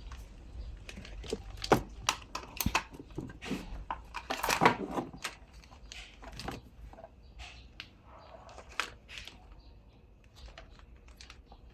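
Irregular clicks, taps and rustles of hands handling a plug-in power adapter and its cables, over a faint steady low hum from the amplifier and speaker.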